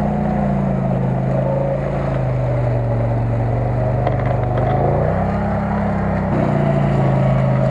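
CFMoto CF-800 side-by-side's V-twin engine running under throttle while driving through mud. The revs drop early on, rise again about five seconds in, then settle lower.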